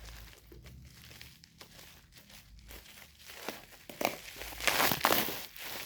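Parcel packaging being opened by hand: soft rustling, then louder crinkling and tearing from about four seconds in.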